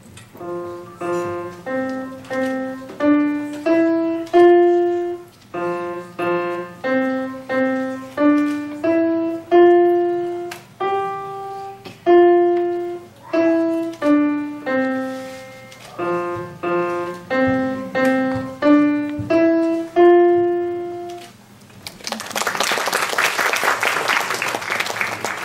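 Grand piano played at a slow, even pace: a simple melody mostly one note at a time, some notes held longer. The playing ends about four seconds before the end and audience applause follows.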